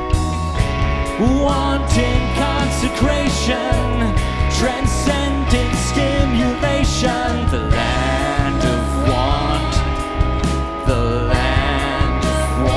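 A rock band playing live: a voice singing over drums, guitars, bass and keys, with a steady beat.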